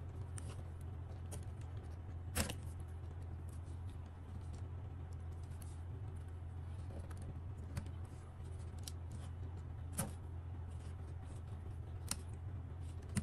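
Steel tweezers clicking and tapping against a drone's circuit board, wires and plastic frame: a handful of sharp, separate clicks, the loudest about two seconds in, over a steady low hum.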